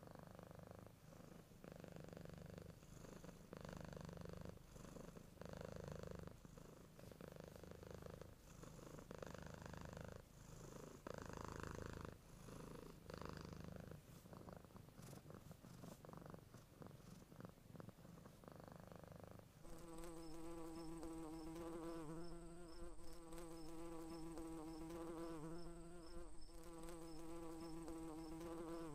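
A sleeping cat purring softly, the purr swelling and fading with each breath about once every second or so. About twenty seconds in it changes abruptly to a steady, higher-pitched buzzing drone.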